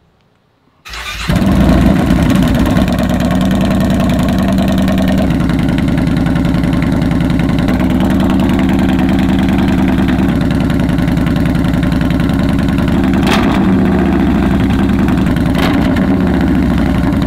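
2015 Yamaha Bolt R-Spec's air-cooled V-twin starting about a second in and then idling steadily through a Vance & Hines Twin Slash exhaust with Competition baffles freshly fitted to quiet the open pipes. The idle is even, which the owner takes for running a lot cleaner.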